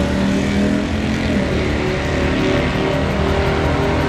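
L83 5.3-litre V8 in a swapped Mazda running at low revs as the car creeps forward, its revs easing down in the first second and then settling into an uneven, choppy low-speed running.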